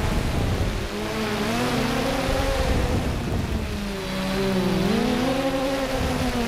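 3DR Solo quadcopter's electric motors and propellers whining over a low rumble. The pitch of the whine rises and falls twice as the motors change speed.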